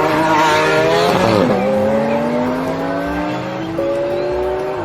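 Race car engine sound effect, revving. The pitch climbs, drops sharply about a second and a half in, then climbs steadily for about three seconds before dropping again at the end.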